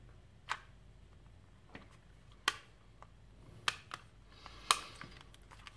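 Plastic multimeter case and circuit board handled by hand as the board is pressed back into the case: a few sharp clicks and taps spread apart, the loudest near the end.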